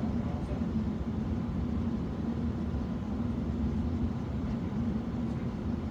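Steady low mechanical hum with a constant drone, running evenly without breaks.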